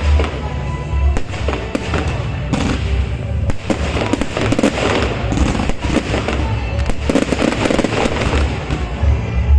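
Fireworks display: a dense run of bangs and crackles from bursting shells, over a constant low rumble.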